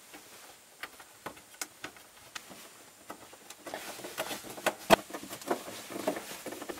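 Light clicks and taps of hand tools and the fuel pump access cover being handled and fitted. They are scattered at first, then busier with some rustling in the second half, with one sharp knock about five seconds in.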